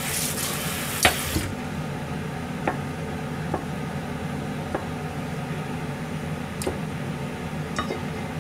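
Kitchen knife slicing through a block of tofu, the blade tapping down on a plastic cutting board about seven times at uneven intervals, over a steady low hum; a brief hiss in the first second and a half.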